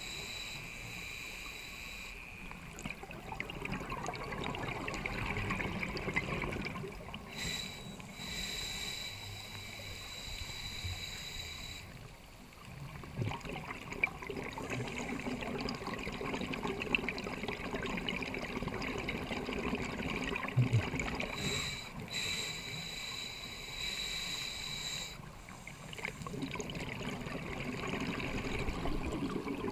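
Scuba diver breathing through a regulator underwater: a hissing, whistling inhale of a few seconds alternates with a longer bubbling exhale, about three breaths in all.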